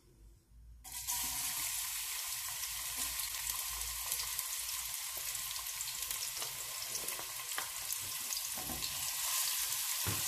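Minced garlic dropped into hot cooking oil: the sizzling starts suddenly about a second in, then carries on as a steady sizzle with light crackles as the garlic fries. A wooden spatula stirs it near the end.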